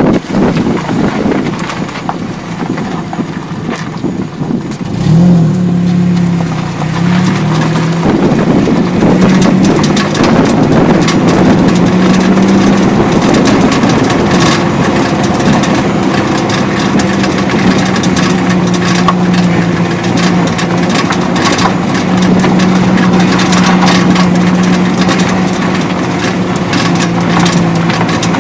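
Ford Focus 2 driving with its engine running steadily, and from about twelve seconds in a repeated metallic knocking rattle from the rear. The rattle comes from a loose rear brake pad, not the suspension.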